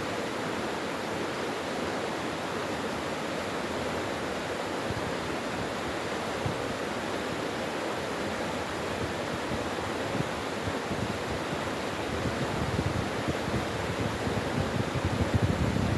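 Mountain stream (valley brook) water rushing steadily over rocks. In the last few seconds a low, uneven rumble builds underneath.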